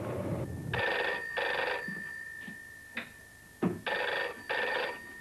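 Telephone bell ringing in the British double-ring pattern: two quick rings, a pause of about two seconds, then two more. A low rumble cuts off abruptly just before the first ring, and a few sharp clicks fall between the pairs.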